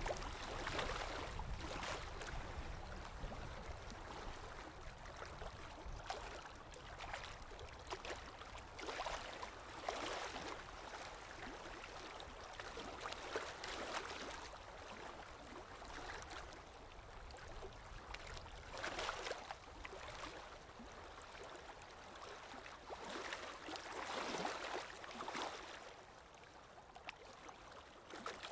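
Running water, splashing and gurgling steadily with irregular surges every second or two.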